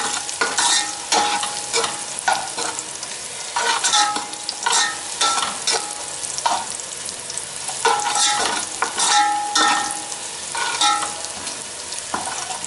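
A metal spoon scrapes and knocks around the inside of an aluminium pot, making irregular strokes. The pot rings briefly after some strokes, over the sizzle of onions, whole spices and ginger-garlic paste frying in oil.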